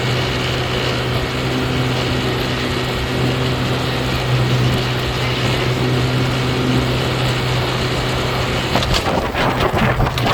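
Boat motor running at a steady pitch under a rush of wind and water noise. Near the end, a burst of irregular crackling noise joins it.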